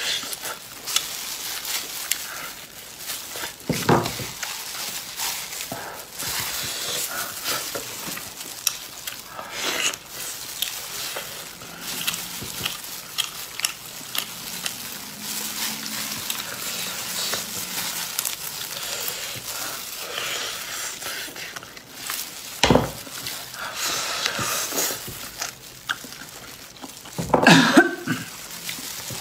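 Close-up eating sounds: chewing and tearing spiced grilled meat on the bone, with wet mouth noises and the crinkle of plastic gloves and lettuce leaves as the meat is wrapped. A steady run of small crackles, broken by a few louder knocks.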